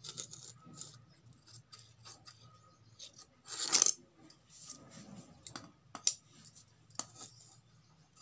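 Large metal tailor's scissors snipping through blouse cloth, with a louder, short clatter about halfway through and a few scattered clicks after it.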